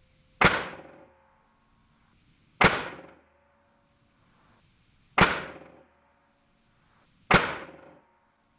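Custom-built .22 calibre PCP air rifle firing 40-grain slugs at about 1000 feet per second: four sharp shot reports, each with a short fading tail, about two to two and a half seconds apart.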